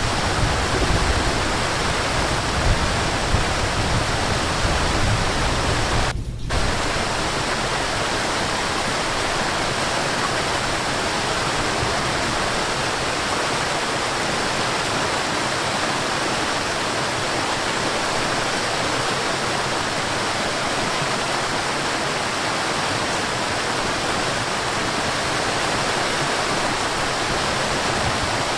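Waterfall rushing steadily. About six seconds in there is a brief dropout, and after it the deep rumble is lighter.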